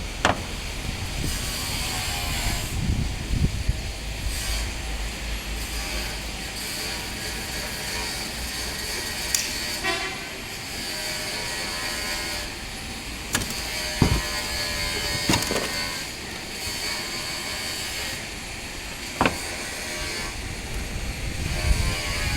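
Scattered sharp clicks and knocks from handling electric-fence wire and tools, about six over the stretch, over a steady background of road traffic.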